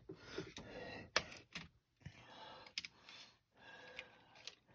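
Light, irregular clicks and rustling as small plastic model-train items are handled, with a few sharper taps just after the first second.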